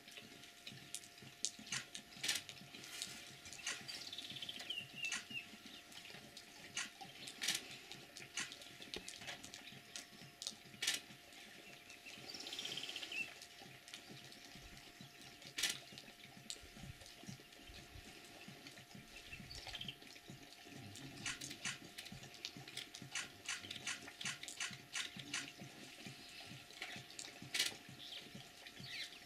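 Several lions lapping water, heads down at the water's edge: a steady run of irregular wet clicks and splashes.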